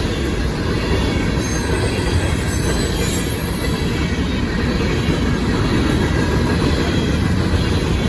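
Freight train of grain hopper cars rolling past, a steady rumble of steel wheels on the rails.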